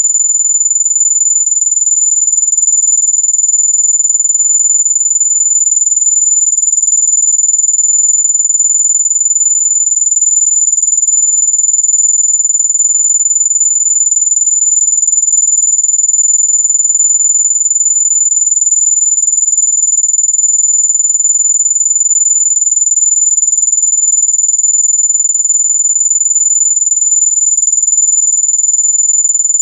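Loud, steady, very high-pitched electronic tone held at one unchanging pitch, a mosquito-repellent sound that is supposed to keep mosquitoes away.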